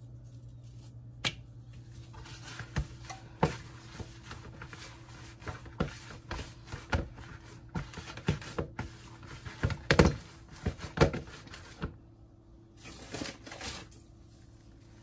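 Irregular clicks and light knocks of hands handling a corn-masa tortilla and the comal, over a steady low hum. The knocking grows busier toward the middle, is loudest about ten seconds in, and stops about twelve seconds in except for a brief patch after.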